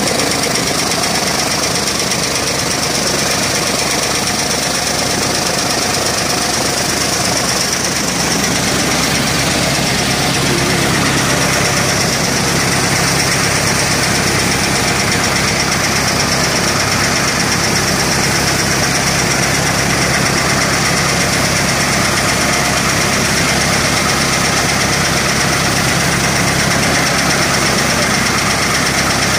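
Tractor-driven flywheel chaff cutter running steadily: the tractor engine's drone mixed with the cutter's flywheel and blades chopping straw as it is fed in.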